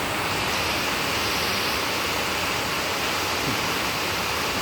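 Heavy storm rain falling steadily, a dense, even hiss of water.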